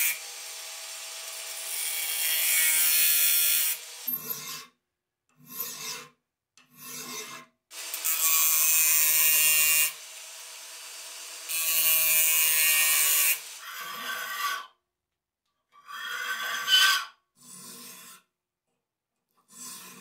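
An angle grinder grinding a steel knife blade blank, cut from an old circular saw blade and clamped in a vise, in runs of about two seconds. Between the runs, and more toward the end, a hand file rasps across the steel in short separate strokes.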